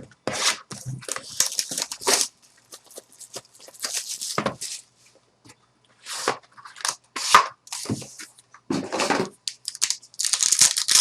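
Trading card pack packaging being torn open and crinkled, in short, irregular rustles and rips.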